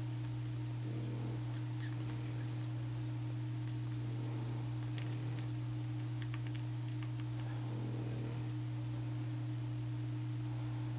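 Steady low electrical hum with a thin high-pitched whine above it, and a few faint clicks scattered through it.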